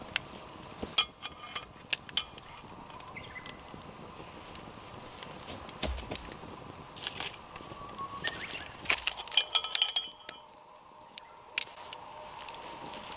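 Wire pot lifter and a small Lodge cast iron skillet clinking together: a few short ringing metallic chinks about a second in and again a little before the end, among small crackles and clicks from a campfire.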